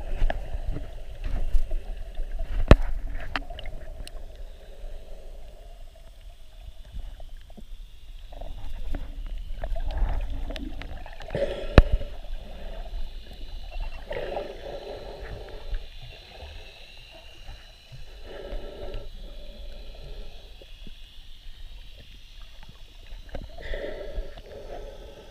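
Underwater sound picked up through a camera's waterproof housing: a low rumble and muffled sloshing of water, swelling every few seconds, with a few sharp clicks.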